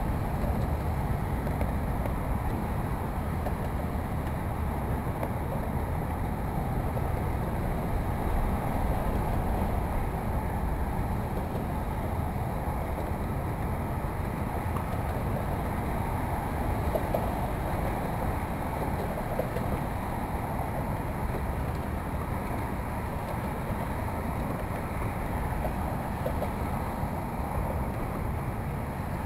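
Steady wind on the microphone over open water: an even low rumble with a hiss above it.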